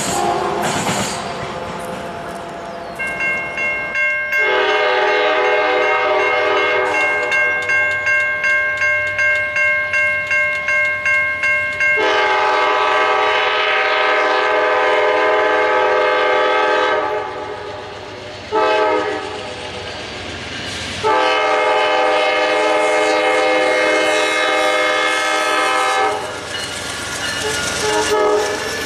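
Amtrak GE P42DC locomotive sounding its horn for the grade crossing as it approaches: a long blast, a shorter one, then another long one, over a crossing warning bell pulsing about twice a second. The horn stops a few seconds before the end as the train reaches the crossing, leaving rail and wheel noise.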